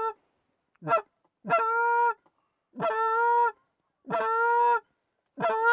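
Goose call blown in a steady series of long honks, each sliding up into a held note, about one every 1.3 seconds, to coax circling geese in to the decoys.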